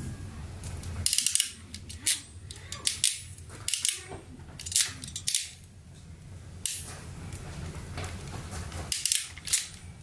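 Hand crimping tool clicking as crimp connectors are squeezed onto wire ends: a quick run of clicks about a second in, then scattered single sharp clicks.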